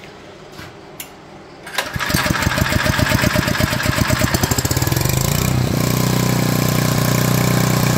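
A few small clicks, then about two seconds in a 79cc Predator single-cylinder OHV four-stroke engine starts: its firing pulses quicken as it runs up, and by about six seconds it settles into steady running.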